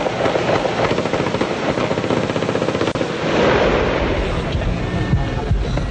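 Rapid rifle fire, many shots in quick succession.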